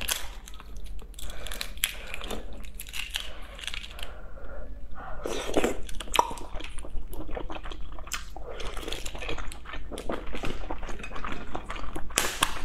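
Shells of cooked fertilized eggs (huozhuzi) cracking and crackling as they are broken and peeled by hand: a dense, irregular run of sharp cracks and crinkles.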